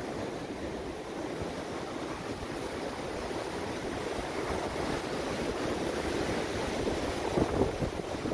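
Steady rushing wind buffeting the microphone, with an uneven low rumble that gusts stronger near the end.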